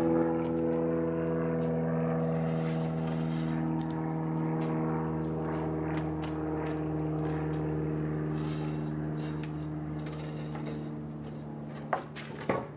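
A steady engine drone slowly fades under light clattering as a wooden stud wall frame is handled. Near the end come two sharp knocks about half a second apart, from the frame being set in place on the slab.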